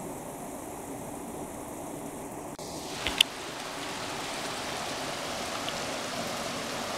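Water spilling down a concrete weir and splashing into the pool below, a steady rushing and splashing. Two sharp clicks about three seconds in.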